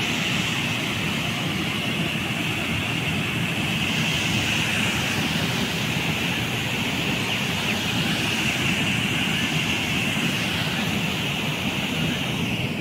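Loud, steady rushing of water released from a dam and pouring through an outflow channel.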